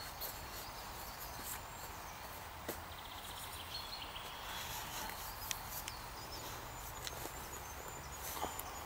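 Quiet gear handling: a cotton bandana rustling as it is stuffed into a titanium cup, and a few light clicks as the cup is fitted over a metal water bottle and packed into a pouch.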